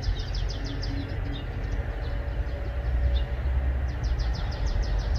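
A bird singing a series of rapid, high trilled notes at the start and again near the end, over a steady low rumble.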